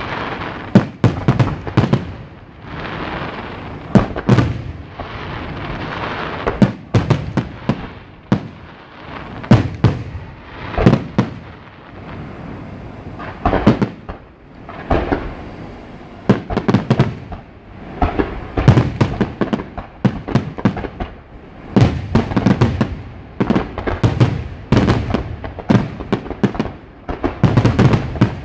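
Fireworks display with aerial shells bursting in quick, irregular succession: sharp bangs, each trailing off in a rolling rumble.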